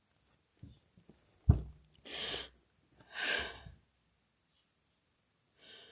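A woman sighing heavily twice, upset and close to tears, after a soft knock about a second and a half in.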